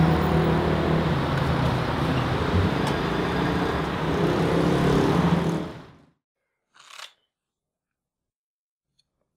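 Loud steady mechanical rumble with a low hum, fading out about six seconds in. Near silence follows, with one short soft noise about a second later.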